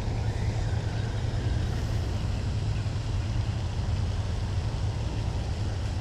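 Steady low rumble with a hiss over it, even throughout with no distinct events.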